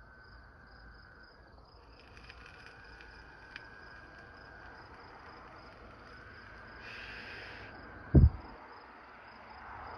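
Night chorus: a steady, pulsing high insect trill, with long, level-pitched calls through the middle that she takes for toads, though she has never heard toads sound like that. About eight seconds in, a brief low thump is the loudest sound.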